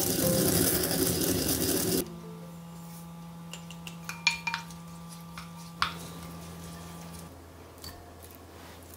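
Kitchen preparation sounds: a steady hiss for about two seconds that stops suddenly, then a few light clinks of dishes and utensils over a low hum.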